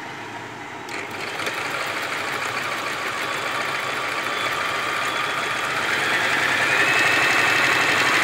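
Butterfly JHQ3010 electric home sewing machine starting up about a second in and stitching through cotton fabric: the motor runs steadily with the needle mechanism clattering. It grows louder and a whine comes in near the end.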